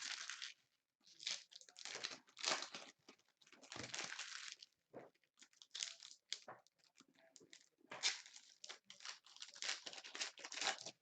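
Crinkling and tearing of trading-card pack wrappers, with cards being handled, in irregular bursts separated by short pauses.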